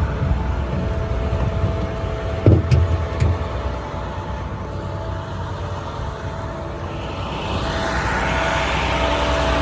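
The truck's International MaxxForce 7.6 diesel engine running steadily, with a short clunk about two and a half seconds in. From about seven seconds in, a rising whoosh builds as the engine speeds up.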